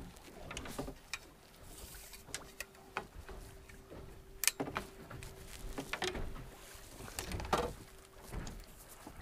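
Scattered knocks and clatter of gear being handled on a small boat's deck, including a landing net being picked up, over wind and water, with a faint steady hum from about a second in.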